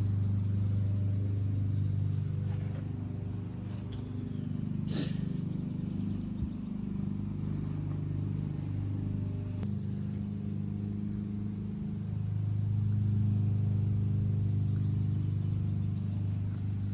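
Vehicle engine idling with a steady low hum. A brief sharp, high sound cuts in about five seconds in.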